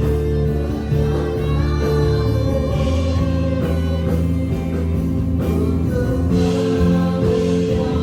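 Worship music with singing and instruments, sustained held notes over a steady bass.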